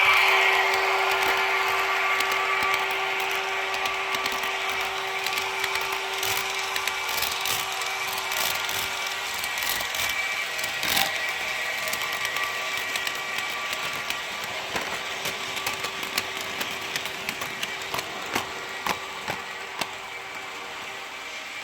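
H0 scale model locomotive, a Piko Vectron with a sound decoder, running along model track. The wheels click and rattle irregularly over rail joints, over a steady electric hum. The sound slowly fades as the train moves away.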